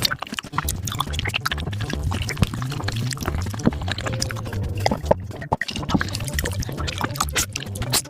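Close-miked eating sounds of beef feet played at five times speed: chewing and lip smacking sped up into a dense patter of wet clicks, over a low repeating beat.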